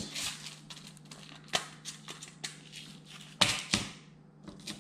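Clicks and knocks of a small clear plastic compartment box of leader-line crimp sleeves being handled, opened and set down on a wooden table. The two loudest knocks come about three and a half seconds in.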